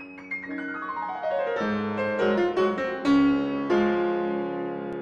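Short closing jingle on piano: a quick string of notes, then several full chords that are held and ring on.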